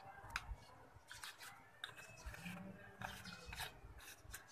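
Quiet room tone with a few faint, scattered light clicks and rustles.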